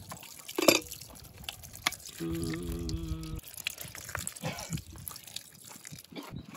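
Milky liquid poured in a thin stream into a stainless steel basin of turtle pieces, herbs and spices, splashing and dripping onto the food. A sharp knock comes about two-thirds of a second in, and a steady low tone lasts about a second from just past two seconds in.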